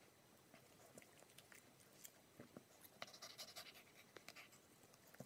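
Near silence, with faint panting and small scattered clicks from a dog being stroked on the head.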